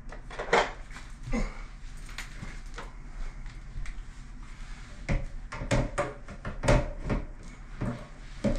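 Irregular knocks, clicks and clunks of hand tools and fittings being worked at plastic supply and drain pipes in an open wall, busiest from about five seconds in, over a faint steady low hum.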